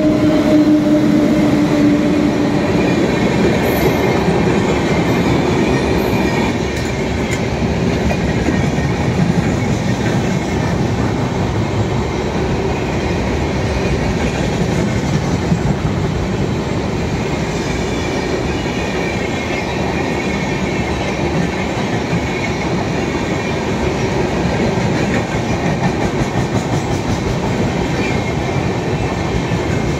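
Passenger train hauled by an electric locomotive passing at speed: a loud, steady rush of steel wheels on rails with clatter over the rail joints.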